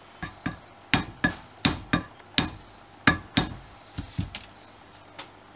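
About a dozen light, irregular hammer taps on a small nail used as a punch, driving the seized brass float hinge pin out of a Honda CB125S carburettor; the pin has begun to move. The taps are loudest through the middle and fainter near the end.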